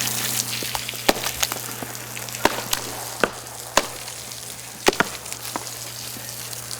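Scattered sharp knocks and clicks, roughly one or two a second and uneven in strength, over a steady low hum.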